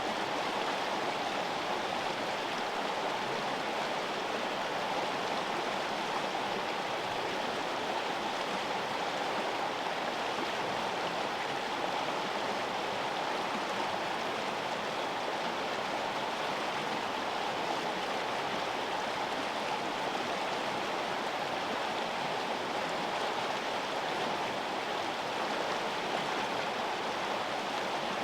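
River water flowing: a steady, even rush of running water that does not change.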